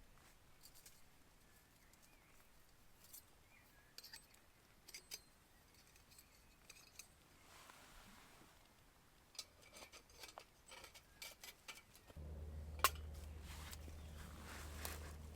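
Faint, scattered light clicks and taps of small hard objects, irregular and a few at a time. About twelve seconds in, a steady low hum sets in, with one sharp click soon after.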